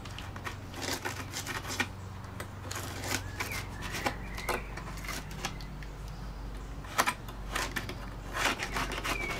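Scalpel blade cutting and scoring through the thin wood veneer of a balsa model-aircraft wing: a run of short, irregular scratchy clicks and scrapes, with a sharper one about seven seconds in.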